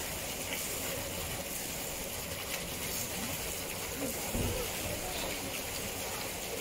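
Steady rush of running water, with faint voices in the background about two thirds of the way through.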